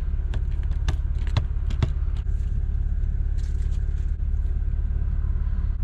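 Small clicks and taps of sandwich-making: a banana sliced with a Wheat Thin cracker on a paper plate, then Nutella spread on bread. These are heard over a steady low rumble.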